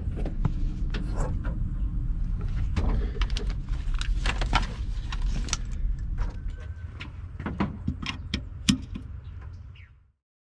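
Steady low hum of a running motor, with many light clicks and knocks of things being handled over it; the sound cuts off suddenly near the end.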